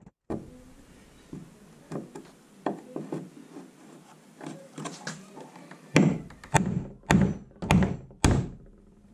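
Pliers working a ring-shank nail out of wood: small clicks and scrapes as the jaws grip and twist, then five loud knocks about two a second near the end as the stubborn nail is levered free.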